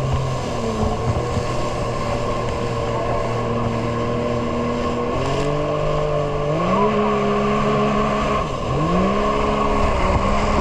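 Jet ski engine running under throttle over a steady rushing noise. Its pitch steps up twice in the middle, dips briefly near the end and then climbs again.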